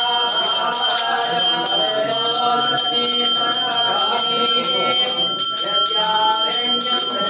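Temple hand bell rung continuously in fast, even strokes, its high ringing tones held steady, over voices chanting puja mantras.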